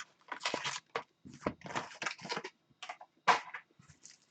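Trading-card packs and boxes being handled: irregular rustling and crinkling of wrappers with light clicks and knocks, one louder about three seconds in.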